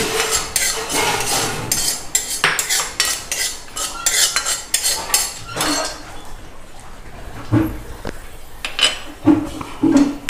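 Metal spoon stirring in a kadai, scraping and clinking irregularly against the pan, as fenugreek seeds are dry-roasted.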